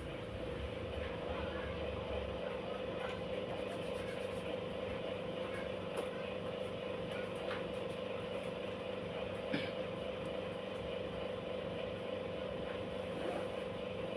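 Steady background hum with an even tone, broken by a few faint clicks.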